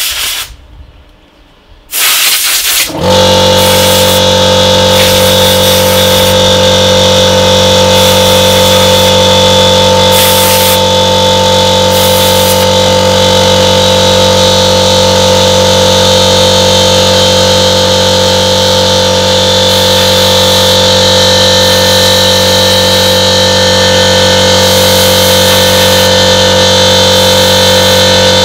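Two short hisses of compressed air, then an electric air compressor kicks in about three seconds in and runs on with a loud, steady hum; brief hisses of air come and go over it now and then.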